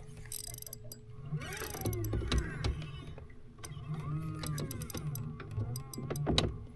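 Fishing reel being cranked, its drag clicking irregularly, while a hooked bass stays buried in cover, over a low steady hum.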